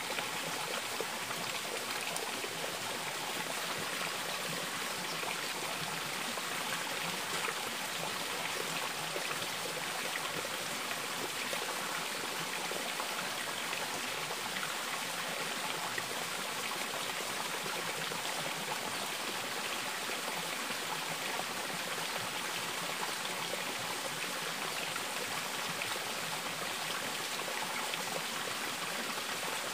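Stream water running steadily, an even rushing sound.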